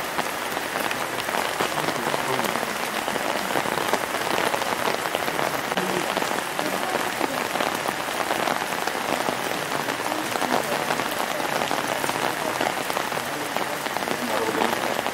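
Steady rain falling on the street and parked cars, an even patter of drops with no let-up.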